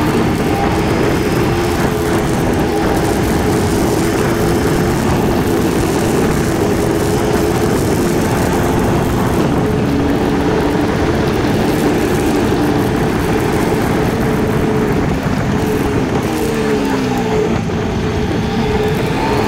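KTM Duke 250's single-cylinder engine running steadily under way, with wind rushing over the camera microphone. About three-quarters through, the engine pitch falls briefly as the revs drop, then holds steady again.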